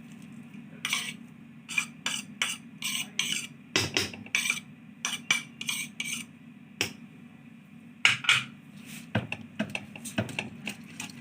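A spoon stirring thick béchamel sauce in a pot, with irregular clinks and scrapes against the pot's sides, over a steady low hum.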